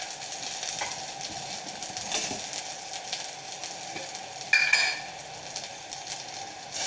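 Pan of ghee-fried nelanelli, chillies and cumin still sizzling in the hot pan after the flame is turned off, with a few light clicks of stirring. About four and a half seconds in comes a loud, ringing metal clink.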